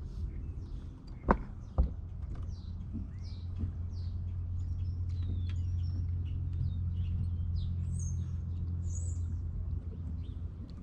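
Songbirds chirping and calling in many short notes, with two sharp knocks about a second and a half in and a steady low rumble through the middle.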